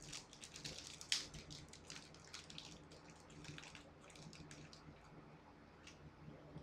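Faint crackling and rustling of a plastic candy wrapper being handled, a quick run of small crinkles over the first few seconds with one sharper crackle about a second in. A low steady hum lies under it.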